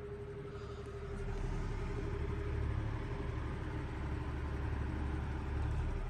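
Patton U2-1487 high-velocity fan running, a steady whoosh of air with a faint motor hum. About a second in it gets louder and a low rumble of its airflow buffeting the microphone builds as the microphone comes up to the front of the fan.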